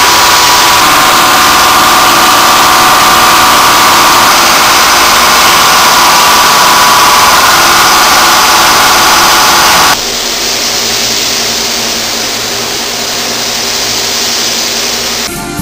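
Compressed-air paint spray guns hissing steadily as paint is sprayed onto a truck cab. The hiss drops abruptly to a quieter level about ten seconds in.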